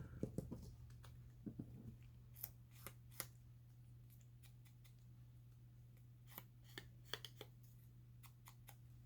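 Faint snips and clicks of scissors cutting paper, in scattered groups with a lull around the middle, over a low steady hum.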